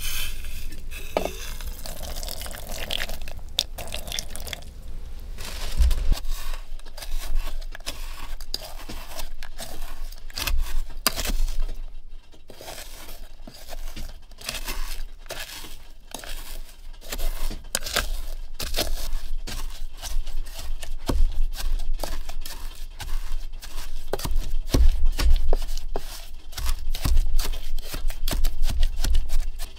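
Berries being crushed with a wooden pestle in an aluminium camping pot: a long run of wet crunching and dull knocks against the pot's bottom and sides.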